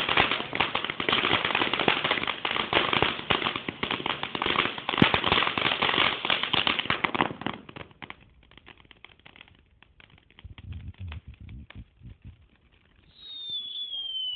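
Ground fountain firework crackling, a dense rapid spray of pops that thins to scattered crackles about halfway through. Near the end a high whistle starts and slowly falls in pitch.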